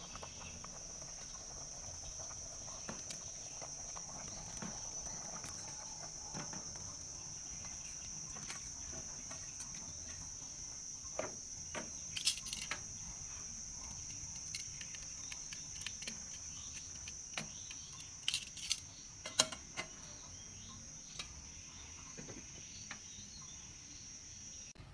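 A steady high-pitched insect trill, with a few sharp clicks and knocks of kitchenware, the loudest about three quarters of the way through.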